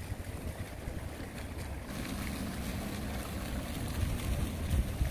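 Wind buffeting the microphone: a steady low rumble with a fainter hiss over it, and a few low thumps near the end.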